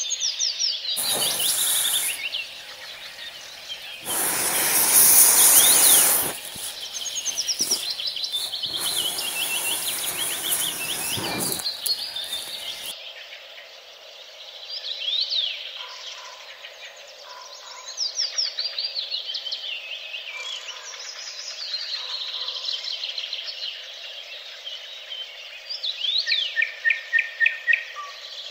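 Several songbirds singing, with many short whistled chirps and phrases and a fast trill of repeated notes near the end. For the first dozen seconds loud bursts of rushing noise come and go over the song, then stop suddenly.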